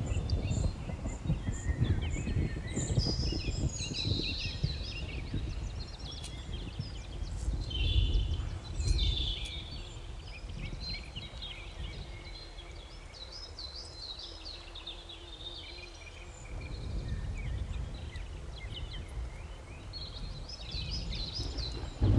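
Outdoor ambience of many small birds chirping and calling over a low background rumble, which eases off for a few seconds in the middle.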